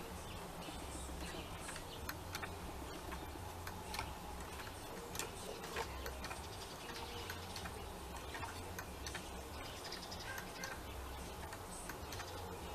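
A wooden whirligig running: its mechanism clicks and taps irregularly over a low rumble that comes and goes.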